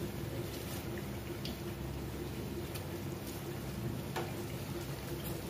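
Breaded chicken bread patties deep-frying in hot oil, a steady sizzle, with a few light clicks of a metal spatula against the wok as they are turned.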